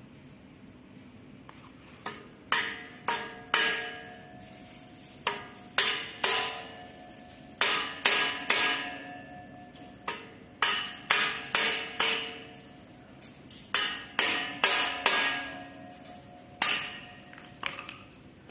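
Hammer blows driving a bearing out of a steel frame's hub, with a second hammer's handle used as a drift: sharp metallic strikes in bursts of three or four, about two a second, each ringing briefly. The blows start about two seconds in and stop a second before the end.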